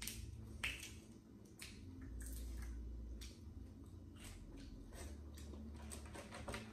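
Boiled crawfish being cracked and peeled by hand, with wet squishing and chewing: irregular small shell crackles and clicks, the sharpest about half a second in.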